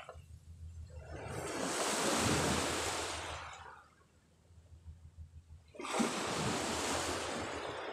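Sea waves washing onto the shore in surges: one swells up and fades away, and after a lull another comes in sharply about six seconds in.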